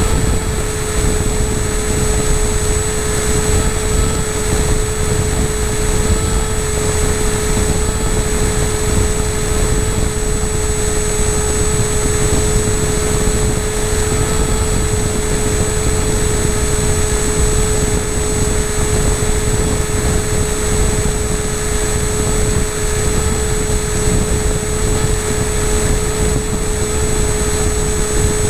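Onboard audio of an FPV model aircraft in flight: its motor and propeller hold one steady, unchanging whine over a loud rush of wind across the camera.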